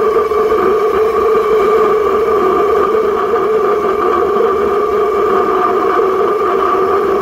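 Waste-oil burner firing, a loud, steady rush of flame with a constant hum in it.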